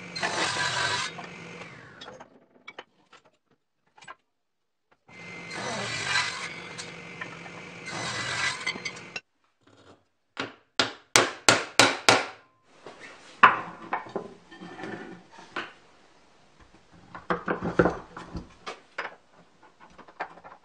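Table saw cutting wood: the saw running through a cut that ends about a second in, then two more cuts from about five to nine seconds in. After that comes a quick run of about eight sharp knocks, then scattered knocks and scraping as wooden parts are handled.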